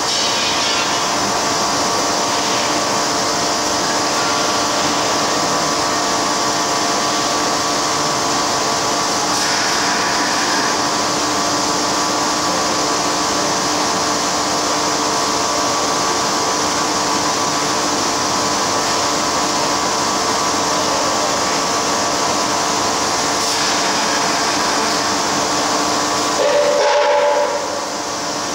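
Kearns Richards NC125 CNC horizontal borer running: a steady, loud hiss with several constant hums beneath it. About 27 s in, a brief louder burst comes, and then the level drops a little.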